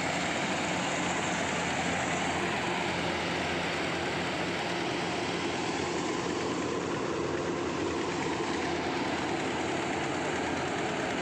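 Kubota rice combine harvester running steadily, its engine a heavy, even drone.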